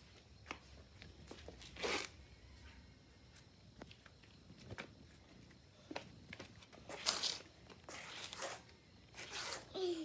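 Scattered scuffs and steps of a child's shoes on concrete, in short bursts, the loudest about two seconds in and around seven seconds. A brief falling vocal sound near the end.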